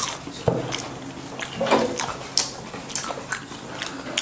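Crisp fried urad dal vadas being bitten and chewed, a run of irregular crunching crackles picked up close by lapel microphones.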